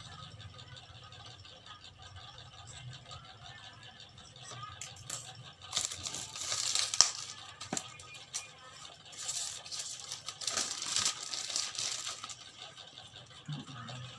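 Packaging being handled and opened by hand: rustling and crinkling in bursts, loudest about six to seven seconds in and again from about nine to twelve seconds.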